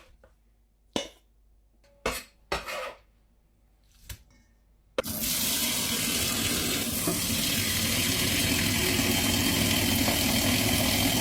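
A few brief sharp sounds, then from about five seconds in a kitchen tap running steadily as the chopped sauerkraut is rinsed under it.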